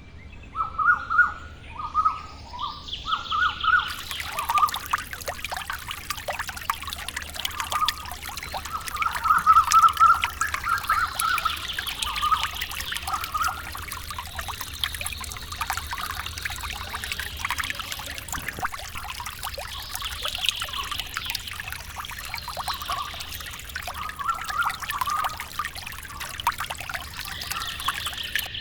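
Water pouring and trickling steadily, with small birds chirping again and again over it.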